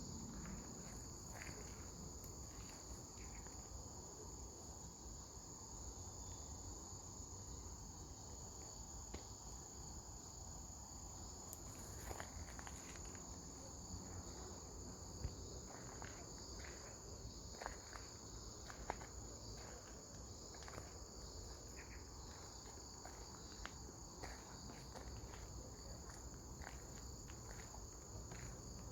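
A faint, steady high chorus of insects in the grass, with a scattered light click or step now and then.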